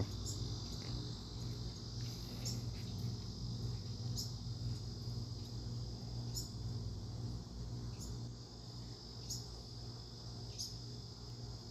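A steady high insect trill like crickets, with a fledgling's short, high chirps breaking through every second or two as it calls for its parents. A low steady hum sits underneath.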